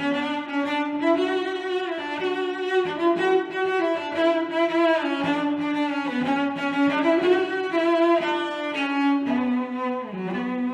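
Background music: slow bowed strings, cello and violin, playing sustained notes.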